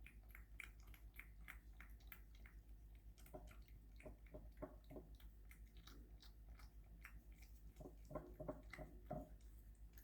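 Cat licking and chewing a lickable churu treat: a run of quick, faint, wet mouth clicks, with two busier, louder clusters in the middle and near the end.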